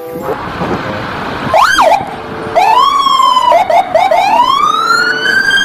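Police car siren: after about a second and a half of road noise, one quick whoop, then a wail sweeping up and down with a few rapid yelps in the middle and a slow rise near the end.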